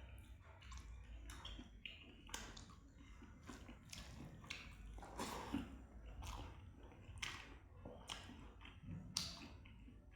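A person chewing a mouthful of rice and curry close to the microphone, with irregular wet smacks and clicks every half second to a second.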